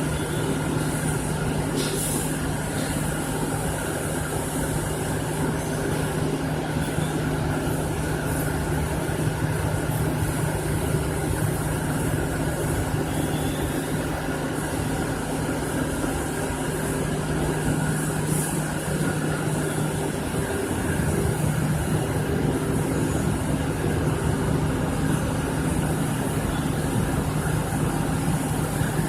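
A machine running steadily: a constant low hum with a hiss over it, briefly hissing louder a couple of times, and the hum shifting slightly about two-thirds of the way through.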